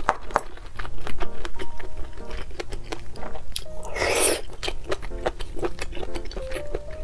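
Background music, with one loud, wet slurping bite about four seconds in as a broth-soaked mushroom is bitten off a skewer.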